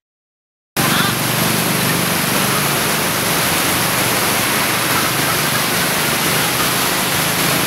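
Steady roar of heavy road traffic heard from above on a footbridge, cutting in suddenly under a second in after silence and holding even throughout.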